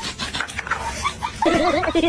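A French bulldog puppy panting and snuffling, with quick clicks and rustles. About one and a half seconds in, a loud, wavering, whine-like vocal sound starts.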